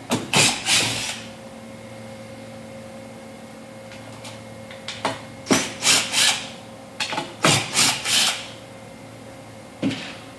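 A screwdriver backing out the screws under the kiosk top: quick rasping scrapes in three groups of three strokes, then one more stroke near the end, over a faint steady hum.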